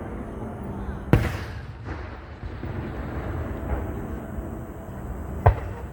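Two aerial fireworks shells bursting with sharp bangs, one about a second in with a short echoing tail and a louder one near the end.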